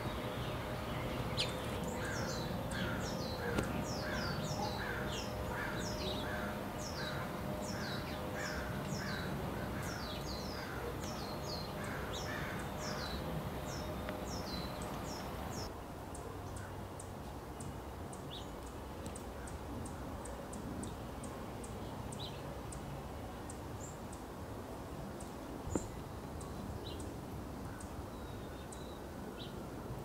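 Birds calling: a steady series of short, harsh, downward-sweeping calls, about two a second, through the first half. After that only faint scattered chirps and ticks remain.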